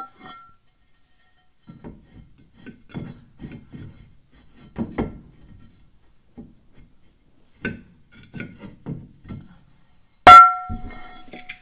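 Cast-iron rear brake drum knocking and scraping against the shoes as it is tried on the hub and will not go over them, because the shoes sit out of alignment. About ten seconds in comes one loud metallic clang that rings on for about a second.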